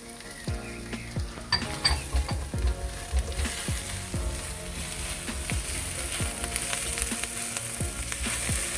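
Diced garlic and ginger sizzling in hot rapeseed oil with spring onions in a wok while being stirred, with a few light clicks of the utensil early on. The sizzle grows louder about three seconds in.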